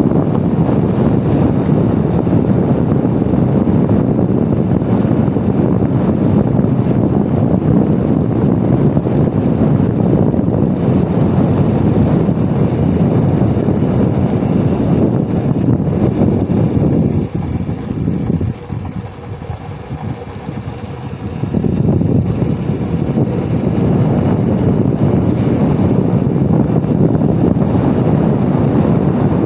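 Heavy wind buffeting the microphone as a motorcycle coasts downhill in neutral with its engine switched off, so no engine is heard. The wind eases for a few seconds about two-thirds of the way through, then comes back.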